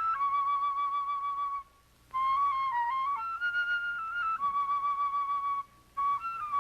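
Solo flute playing a slow melody of long held notes joined by short ornamental turns, with two brief pauses between phrases.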